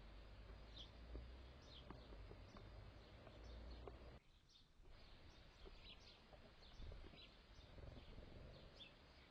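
Faint garden birds chirping, many short high calls scattered throughout, over a low background rumble.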